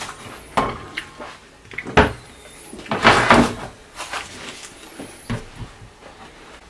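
Kitchen handling sounds: a wooden cutting board and plastic tofu packs being set down on a stone counter, giving a series of sharp knocks and clacks about a second apart, with a longer scraping rustle about three seconds in.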